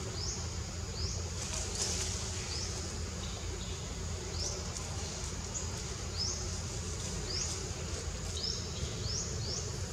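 Forest ambience: short high chirps, each falling in pitch, repeat irregularly throughout, over a steady high insect drone and a low rumble.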